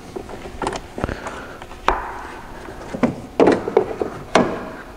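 Hands refitting the plastic air intake duct on a Mercedes CLK 230 Kompressor's air filter housing: a series of sharp plastic knocks and clicks, several in quick succession near the end, as the duct and its clamp are put back.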